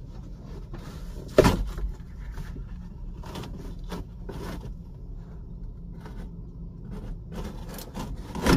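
Car headliner board rustling and scraping against the roof as it is worked loose and eased down by hand. There is a sharp knock about a second and a half in and another near the end.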